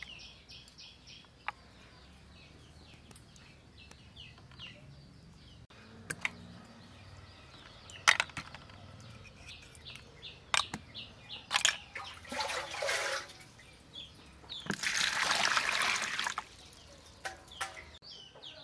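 Snail shells clicking and knocking against each other and the plastic basin as they are handled, with two bursts of splashing water in the second half, the later one the loudest. Faint chirping in the background.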